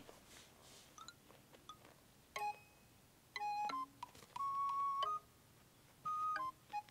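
Background music: a simple melody of steady held notes on a flute-like instrument, coming in about two seconds in after a few faint chime-like plinks.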